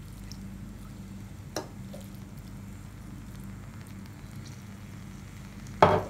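Steady faint hum and hiss under a pot of layered rice as saffron milk is drizzled over it, with a light click about a second and a half in. Near the end a small glass bowl is set down on the wooden counter with a sharp knock.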